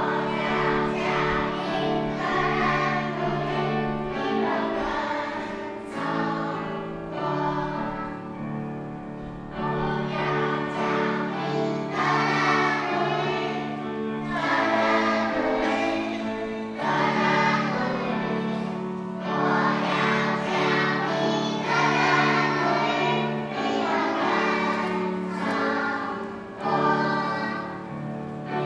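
Young children's choir singing a hymn together, accompanied by a grand piano.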